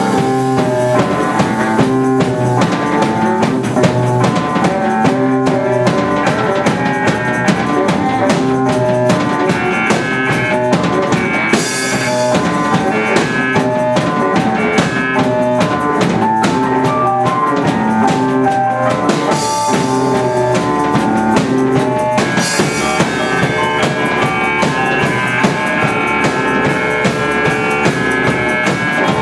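Live band playing an instrumental passage on keyboard, saxophone and drum kit, with a steady drum beat throughout. Cymbal crashes come about twelve seconds in, again near twenty seconds and once more a few seconds later.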